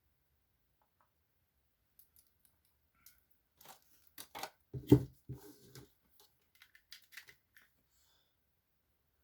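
Packaging being handled: scattered clicks and rustles, with one thump just before the middle.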